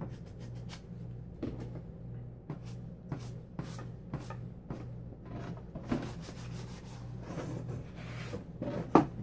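Sandpaper scraping in short, irregular strokes over a varnished oil painting on canvas, taking the varnish off so new paint will stick. A loud knock near the end.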